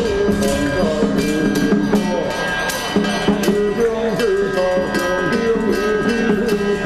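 Loud traditional temple festival music: a wavering melody over frequent percussion strikes.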